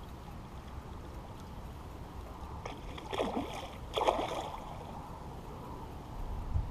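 A hooked mirror carp splashing at the surface twice, about three and four seconds in, as it fights on the line.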